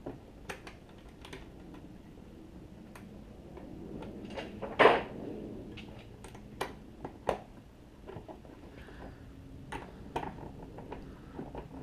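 Scattered light clicks and taps of a locking fuel door and its small screws being fitted by hand, with one louder knock about five seconds in.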